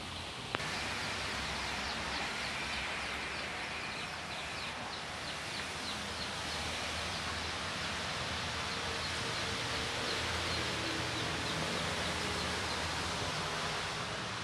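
Steady rush of water running and splashing through a shallow channel, with a single sharp click about half a second in.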